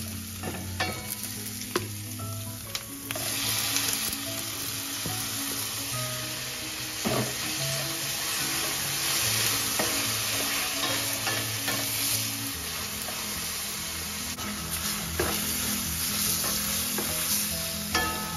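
Garlic, onion and diced tomato sizzling in hot oil in a stainless steel frying pan, with a wooden spatula scraping and tapping against the pan as it is stirred. The sizzle grows louder about three seconds in and stays steady after that.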